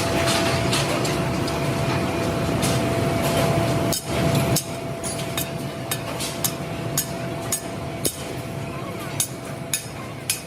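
Leaf spring factory machinery running steadily with a faint constant hum, under irregular sharp metal clanks and knocks that come more often in the second half.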